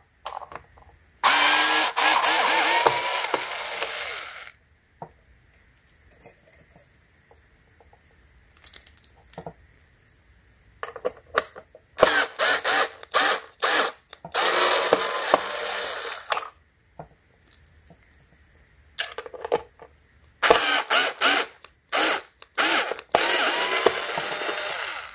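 Cordless drill/driver with a screwdriver bit turning the screws of a battery pack's metal hold-down brackets. It runs in three spells: about three seconds near the start, then a string of short bursts leading into a longer run midway, then more short bursts and a longer run near the end. Sharp clicks of the bit and handling come between the spells.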